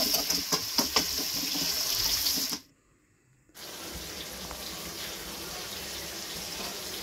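Tomatoes and onions sizzling in oil in an aluminium karahi, with a spatula clicking and scraping against the pan. About two and a half seconds in, the sound cuts to a second of silence, then a quieter steady hiss of the pan cooking on the gas flame.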